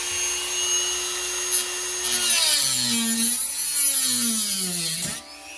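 Dremel rotary tool with a cutting disc, cutting the old stock speaker out of its plastic mounting bracket. A steady high whine while it spins freely, then about two seconds in the pitch drops and wavers as the disc bites in and the motor slows under the load. It stops abruptly near the end.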